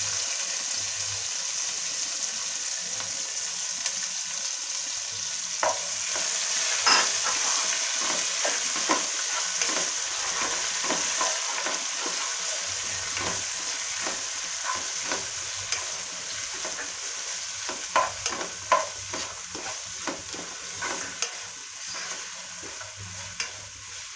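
Sliced onions sizzling in hot oil in a pot. From about six seconds in, a spatula scrapes and clicks against the pot as they are stirred. The sizzle slowly dies down toward the end.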